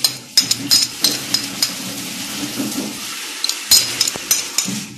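Kitchen handling as dry baking ingredients go into a mixing bowl: a spoon and small containers clicking and tapping, in scattered sharp clicks over a rustling hiss.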